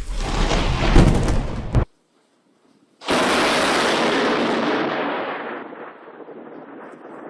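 Close lightning strikes: a sharp crack about a second in over steady storm noise, then after a short gap a second sudden thunderclap that fades away over a few seconds.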